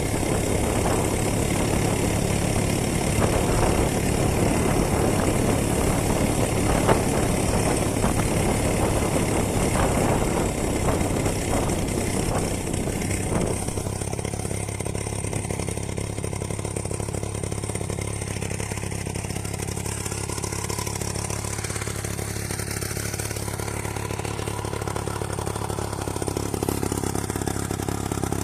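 Two-stroke chainsaw engine driving a homemade moped, running continuously: louder and busier for about the first half, then settling about halfway in to a quieter, steadier run.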